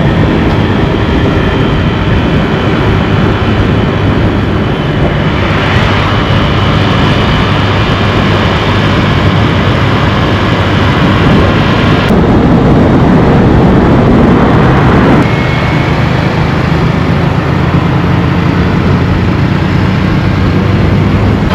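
Scooter riding at speed: its small engine running under heavy wind rushing over the microphone, swelling a little louder for a few seconds past the middle.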